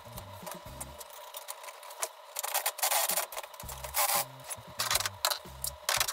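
Sped-up noises of a gaming chair being assembled: quick scratchy rubbing, rustling and clattering of parts and tools, loudest in the middle. Under them runs background music with a bouncy bass line that drops out for about a second near the start.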